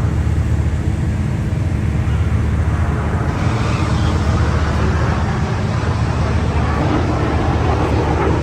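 Loud, steady rumbling roar of aircraft engines at an air show, with a harsher, hissing roar joining about three seconds in and growing stronger.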